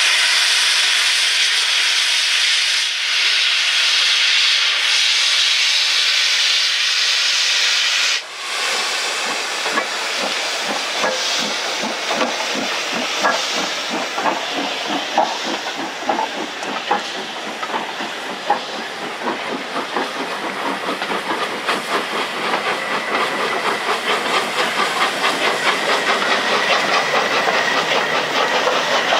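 Steam locomotive hissing loudly from its open cylinder drain cocks. The hiss cuts off about eight seconds in, and a passenger train then rolls by with a steady, rhythmic clickety-clack of coach wheels over rail joints.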